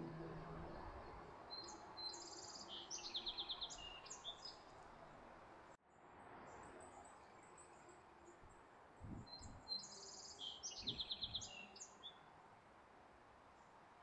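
A small songbird singing twice, the same phrase each time: a run of short high notes with a fast trill in the middle, the second song starting about seven seconds after the first.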